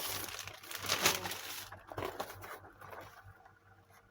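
Packaging crinkling and rustling as it is handled and opened, loud for the first couple of seconds and then dying down to a few faint clicks.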